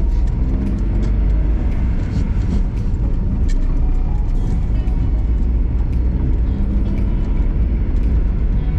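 Car engine and road noise heard from inside the cabin of a small hatchback while driving: a steady low rumble.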